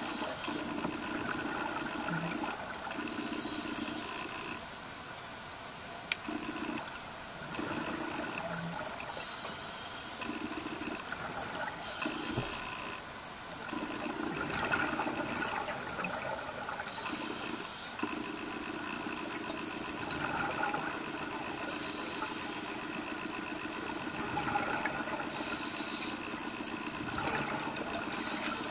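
Underwater sound of a scuba diver breathing through a regulator: a hiss on each inhale every few seconds, alternating with bubbling exhalations, over a steady hum. There is one sharp click about six seconds in.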